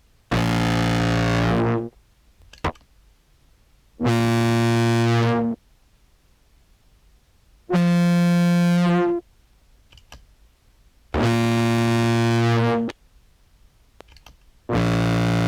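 Sampled contrabass clarinet notes run through an envelope filter into a fuzz pedal: five short held notes, evenly spaced with gaps between, the third pitched higher. Each attack is softened into a slight wah as the filter opens.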